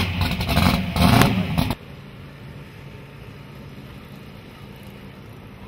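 Purple drag car's engine revving loudly through open exhaust pipes that exit ahead of the front wheel, surging twice, then cut off abruptly about two seconds in. After that a quieter steady background hum remains.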